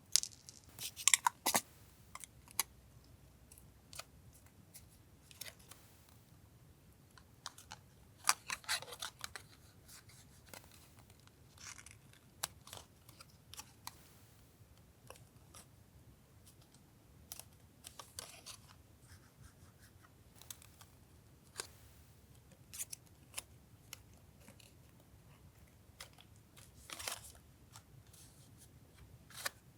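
Scissors snipping paper and paper being handled, in short scattered spells with quiet gaps between, the loudest about a second in and again near nine seconds.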